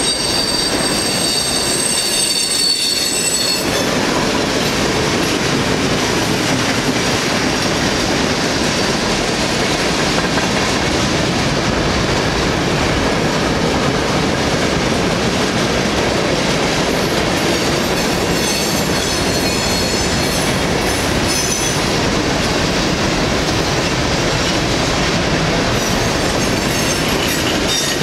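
Freight cars of a New York, Susquehanna & Western train rolling past, a steady loud rumble and clatter of steel wheels on rail. High-pitched metal squeals from the wheels rise over it at the start, again past the middle and near the end.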